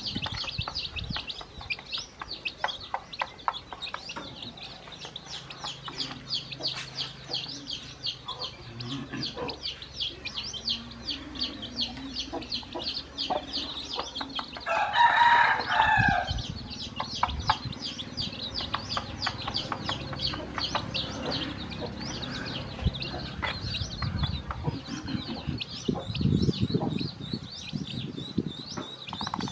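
Newly hatched chicks peeping constantly, many peeps a second, under a mother hen's low clucks. About halfway through, a rooster crows once, the loudest sound.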